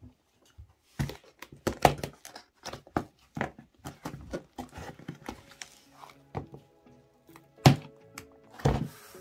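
Cardboard shipping box being handled and torn open by hand: a run of irregular knocks and thunks on the cardboard with packing tape and flaps ripping, the loudest two near the end.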